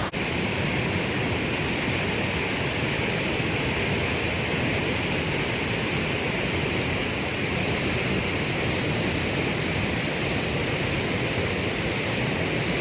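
Steady roar of Cumberland Falls, the Cumberland River pouring over the falls onto the boulders below: an even rushing noise that neither rises nor falls.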